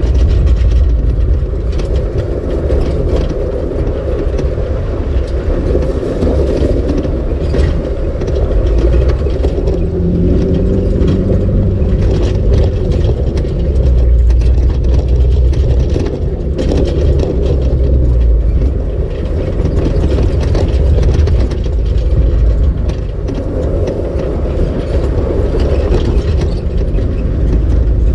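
Off-road vehicle driving on a rough dirt trail, heard from inside the cab: a steady low engine and road rumble with frequent small clicks and knocks as it rolls over the uneven ground.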